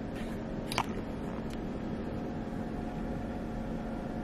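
Steady mechanical hum of a kitchen appliance, with one short click just under a second in.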